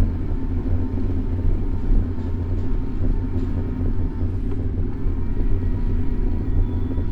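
Steady low rumble of riding a bicycle through city streets: road noise and wind on the bike-mounted camera's microphone, with road traffic. A faint high steady tone joins near the end.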